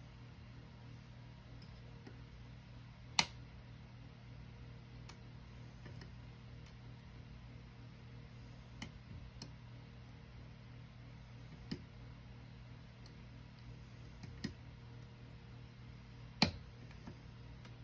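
Scattered sharp metal clicks from a pick and tension wrench working in a Mul-T-Lock Junior cylinder, the two loudest about three seconds in and near the end, over a steady low hum.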